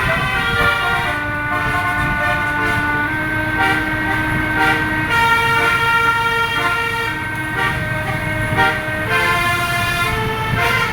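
Bus 'telolet' multi-tone air horn playing a tune of held notes that change pitch every second or so, over the low steady running of the bus engine.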